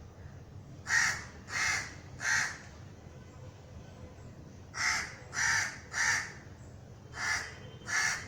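Crow cawing: harsh caws in runs of three, about two-thirds of a second apart, with pauses of a couple of seconds between runs, over a faint steady low rumble.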